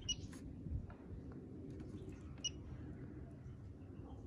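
Gorenje WA65205 washing machine's control panel giving a short, high beep as a key is pressed, twice: right at the start and again about two and a half seconds in.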